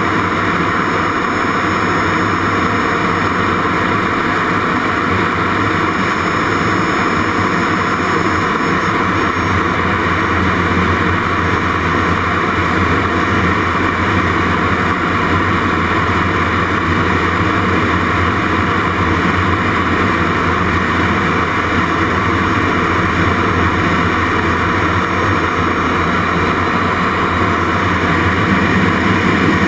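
Jet Provost Mk5's Viper turbojet and the rush of air over the canopy, heard from inside the cockpit during aerobatics: a loud, steady noise. A faint high whine fades out about nine seconds in, and the noise swells slightly near the end.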